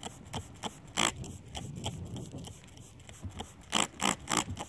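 Trigger spray bottle squirting onto a car windshield in short hissing sprays. The sprays are scattered at first, with a strong one about a second in, then come in a quick, louder run of about four or five a second near the end.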